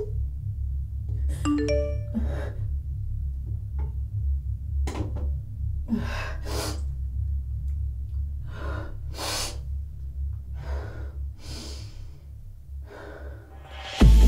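Low, steady droning score music under a person's heavy, gasping breaths, about one a second. A short chime-like tone sounds about a second and a half in, and loud music cuts in at the very end.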